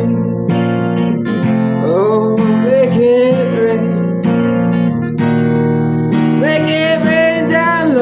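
Acoustic guitar strummed in a steady rhythm, with a voice singing sliding, held notes without clear words about two seconds in and again near the end.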